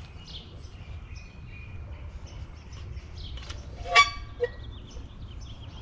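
Songbirds chirping over a low steady rumble. About four seconds in, a single loud, sharp ringing knock as the telescoping flagpole seats in its ground sleeve, followed shortly after by a weaker knock.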